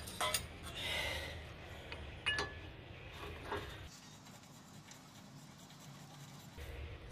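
Light metal clinks and rubbing as a 30 mm socket on a long bar is fitted over the front hub's axle nut and worked onto it, with one sharper clink a little over two seconds in.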